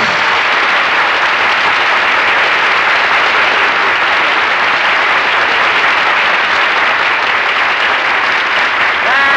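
Studio audience applauding: a long, steady round of applause that follows the end of a sung number, on a 1948 radio broadcast recording.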